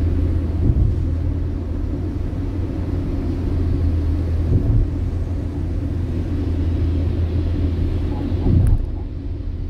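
Steady low rumble of a car's tyres and engine heard from inside the cabin while driving on a wet road, with a faint hiss above it. A brief bump comes near the end.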